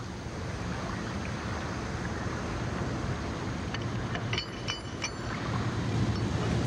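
Riverbank ambience of wind and moving water over a steady low rumble, with a few light clinks about four to five seconds in.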